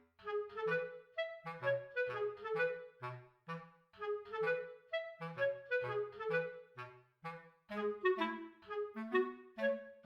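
Background music: a light tune of short, quick notes, about three or four a second, over a bass line.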